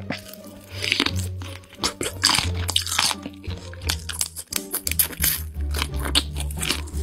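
Crisp crunching bites and chewing of large seasoned prawns, many short sharp crunches in quick succession, over background music with a steady bass line.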